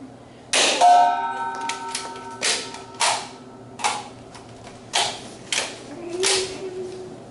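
Nerf Rival blaster firing and being worked: about six sharp snaps at irregular intervals over several seconds.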